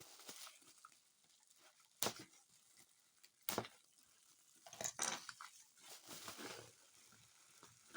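Packaging being cut open, with two sharp snips about two and three and a half seconds in and rustling of the wrapping after them.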